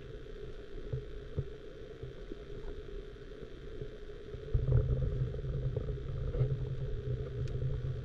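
Muffled underwater sound of river current heard through a submerged action camera's housing: a low rumble that grows louder about four and a half seconds in, with a few faint ticks.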